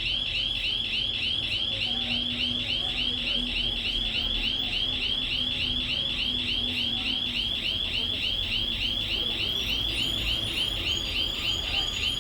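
Shop panic alarm sounding: a high-pitched tone warbling up and down in rapid, even sweeps, repeating without a break.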